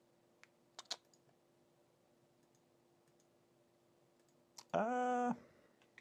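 Computer mouse clicking a few times. About five seconds in comes a short, steady hummed tone lasting about half a second.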